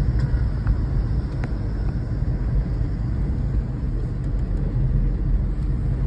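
Car in motion heard from inside the cabin: a steady low rumble of engine and road noise, with a few faint clicks in the first second and a half.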